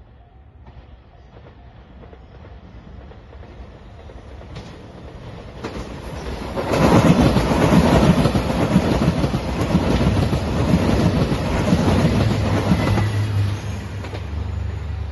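JR Shikoku 2700 series diesel limited express train approaching and passing at speed. Its rumble builds from faint, turns loud with wheel-on-rail clatter about seven seconds in for some six seconds, then eases to a lower steady drone near the end.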